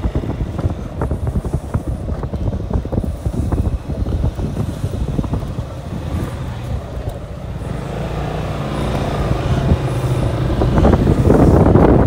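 Motorcycle riding, its engine running under heavy wind buffeting on the microphone; the sound grows louder over the last few seconds.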